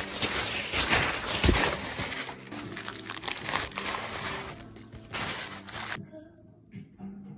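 Tissue paper, plastic bags and gift bags crinkling and rustling as gifts are handled and packed, a dense crackle that cuts off suddenly near the end.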